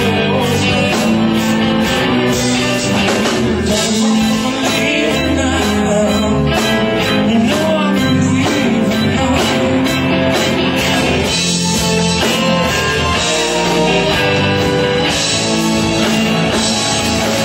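A rock band playing loudly, with electric guitar, drums and a singing voice.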